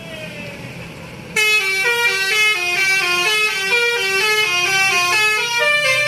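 A bus's 'telolet basuri' multi-trumpet musical air horn cuts in suddenly about a second and a half in and plays a loud, fast tune of stepping notes, several sounding together. Before it, low traffic rumble.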